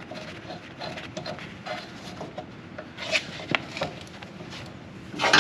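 Hand tools handled on the mower deck's drive shaft bolt: scattered light clicks and scraping, a few sharper ticks about three seconds in, and one louder clack near the end as a wrench is set to remove the bolt.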